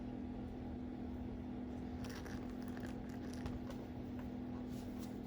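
Quiet room tone with a steady low hum. From about two seconds in come faint, soft clicks and rustles.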